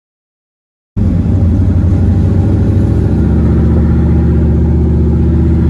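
Car engine and exhaust heard from inside the moving car as a loud, low drone that starts abruptly about a second in. Its pitch wavers at first and then holds steady at cruising speed.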